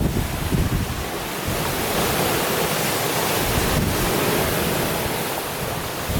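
Wind-driven waves on a rough lake, breaking and washing like sea surf. Wind buffets the microphone for about the first second and a half, then gives way to a steady hiss of surf.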